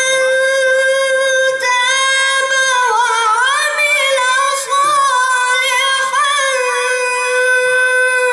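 A boy's voice in melodic Quran recitation (tajweed), holding one long high note through a single breath, with ornamented, wavering turns in the middle before settling back on the same pitch.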